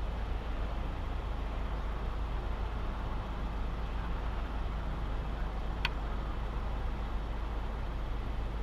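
Car engine idling steadily while stopped, a constant low rumble, with one short sharp click about six seconds in.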